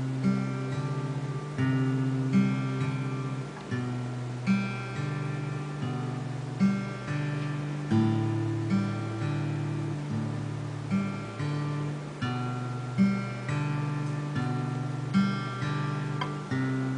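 Alvarez steel-string acoustic guitar fingerpicked: a repeating pattern of plucked bass notes and higher notes, each note ringing on.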